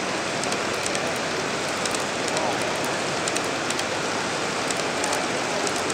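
Steady hubbub of a crowded hall, many overlapping voices blending into a dense murmur, with scattered light clicks from a long train of model freight cars rolling along the track.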